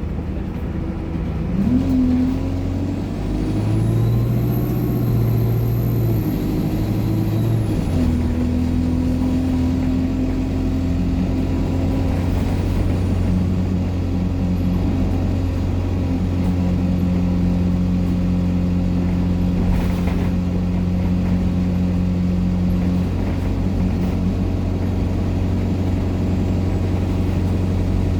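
ADL Enviro200 bus pulling away, its engine and Allison automatic gearbox changing up through the gears. A high turbo whine rises and falls during the first few seconds. After that the engine settles to a steady note.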